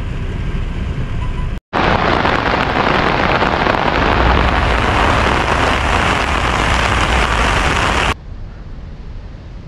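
Heavy rain, first heard from inside a car, then after a brief break a loud, steady rush of downpour and water running over a lake spillway. This rush cuts off suddenly near the end, leaving a softer hiss.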